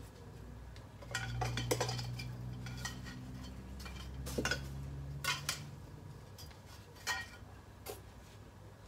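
Irregular clinks and knocks of hard, metallic-sounding objects being handled, coming in a few quick clusters over several seconds.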